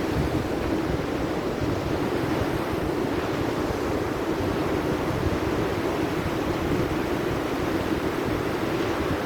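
Steady sea surf with wind buffeting the microphone, an even rushing noise with no breaks.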